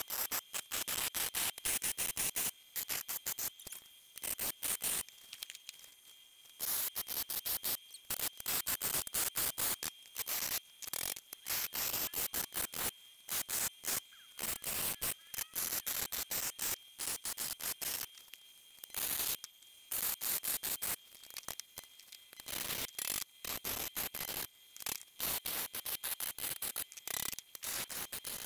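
Arc welder crackling in short bursts, tack weld after tack weld, joining a steel sheet floor pan to a steel tube frame. A faint steady high whine runs underneath.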